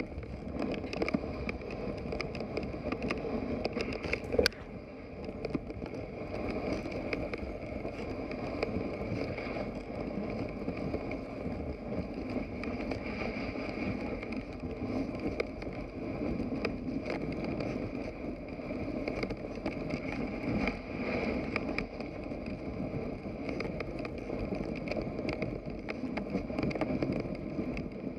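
Dog sled being pulled through deep fresh snow while breaking trail: a steady rushing noise with many small crackles, and one sharp click about four seconds in.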